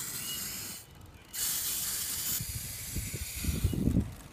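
Grey aerosol spray paint can hissing as it sprays: a short spray, a brief pause about a second in, then a louder, longer spray that settles into a steadier hiss. A low rumble comes in near the end.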